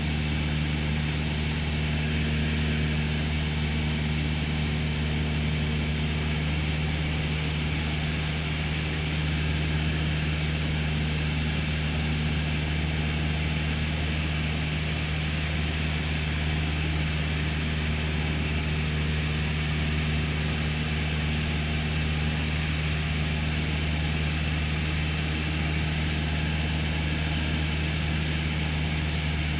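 Single-engine light aircraft's piston engine and propeller running at a constant power setting in flight, heard from inside the cabin as a steady, even drone.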